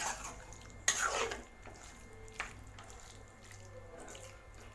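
Spatula stirring marinated chicken pieces in a metal kadai, with three short scrapes and knocks against the pan over a faint low hum.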